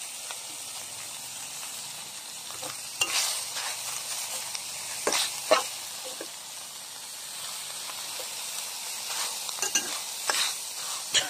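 Minced beef and holy basil leaves sizzling in a steel wok as a metal spatula stir-fries them. The spatula scrapes and knocks against the wok several times.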